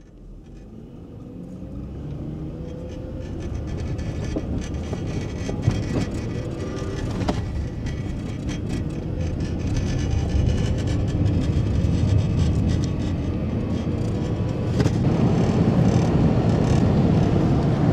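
A car driving on packed sand: a steady rumble of engine and tyre noise with a few short knocks, fading in over the first few seconds.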